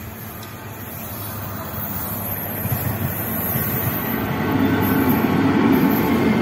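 Humsafar express train passing at speed, its wheels rumbling and hissing on the rails. The sound grows steadily louder, becoming loudest as the coaches run past.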